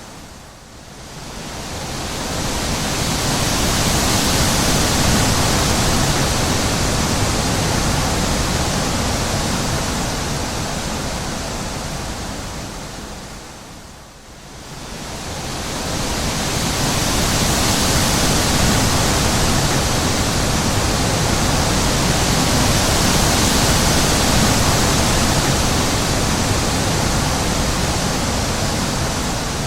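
Wind blowing in long gusts: a full rushing hiss that swells and dies away, sinking to a lull near the start and again about fourteen seconds in before building back up.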